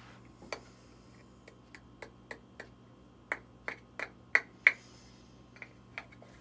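A small plastic jar of loose setting powder being handled and closed, its lid and jar giving about a dozen sharp clicks and taps, the loudest five in a quick run in the middle.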